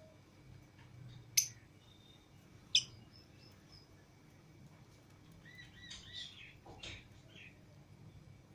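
Pet lovebirds calling. Two short, sharp, loud chirps come about a second and a half apart, then a quicker run of chirps a few seconds later.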